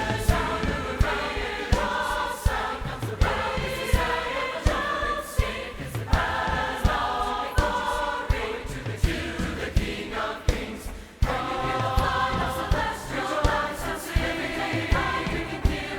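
Large choir singing a Christmas song over instrumental accompaniment with a steady beat, the music dipping briefly about eleven seconds in.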